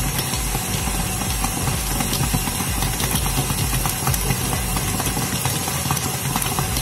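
KitchenAid Artisan stand mixer's motor running steadily, its spinning attachment kneading stiff pandan bread dough in the steel bowl.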